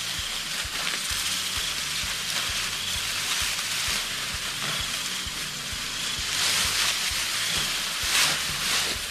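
Ripe rice stalks rustling and swishing as they are grabbed and cut by hand, with a few louder swishes near the end.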